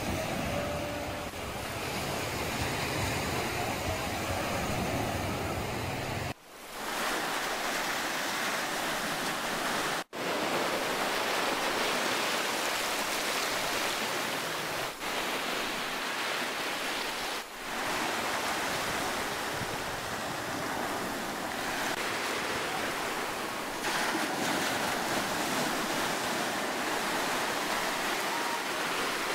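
Small waves breaking and washing up a sandy beach, a steady hiss of surf, broken by a few brief dropouts.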